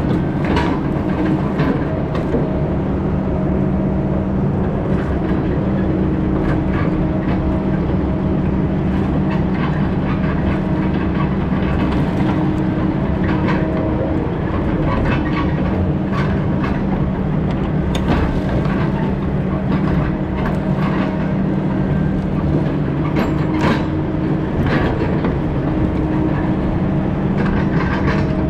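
Heavy diesel logging machine running steadily under load, with frequent metallic clanks and knocks.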